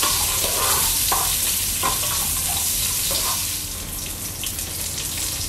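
Onions, garlic and whole peppercorns sizzling steadily in hot oil in a pot, with a spatula scraping and stirring through them. The stirring stops about three and a half seconds in, and the sizzling carries on a little quieter.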